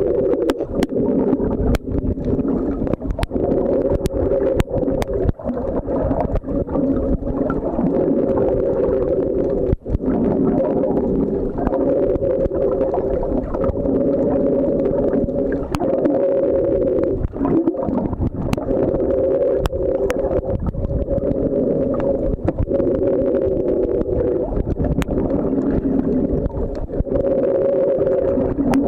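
Seascooter's electric motor and propeller running steadily underwater: a droning hum made of several steady tones over a low rumble, dipping briefly a few times, with scattered sharp clicks.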